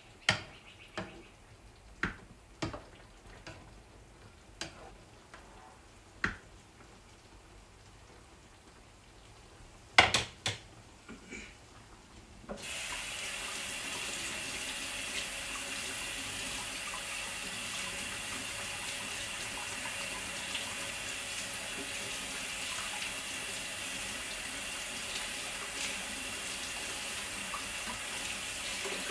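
Scattered kitchen clicks and knocks, the loudest about ten seconds in. About twelve seconds in a tap is turned on and runs steadily into a sink.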